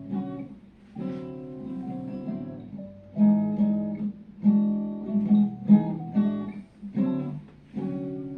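Acoustic guitar strumming chords, a fresh strum about every second, each left to ring.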